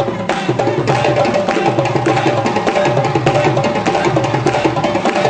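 Live African hand drumming, a fast, dense rhythm of sharp strokes from drums such as the djembe, played for dancing.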